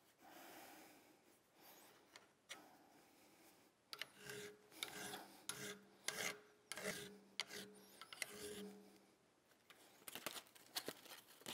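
Hand file stroking across the steel of a Ruger single-action revolver's frame and backstrap, about half a dozen faint strokes roughly a second apart, taking metal off to blend the backstrap into the frame with a smooth radius. A few light clicks near the end.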